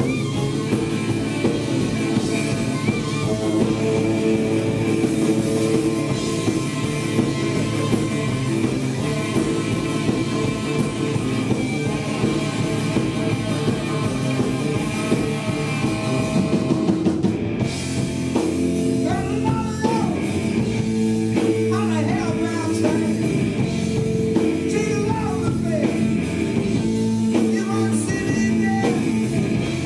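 Live blues-rock band playing: electric guitar, saxophone, electric bass and drum kit. A lead vocal comes in near the end.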